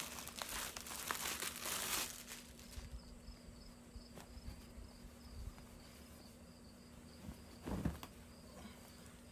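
Clear plastic bag crinkling as it is opened and a T-shirt pulled out, loudest in the first two seconds with sharp crackles. After that, quieter fabric handling as the shirt is unfolded, with a short soft rustle near the end, over a faint, steady, high-pitched trill.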